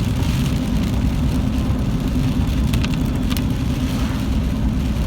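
Car driving, heard from inside the cabin: steady low engine and road rumble, with a few light ticks about three seconds in.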